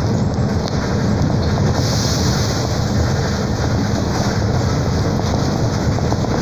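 Steady running noise inside a Mercedes-Benz O-500 U city bus (Caio Millennium BRT body) driving along at speed: the diesel engine's low drone and tyre and road noise. A higher hiss swells briefly about two seconds in.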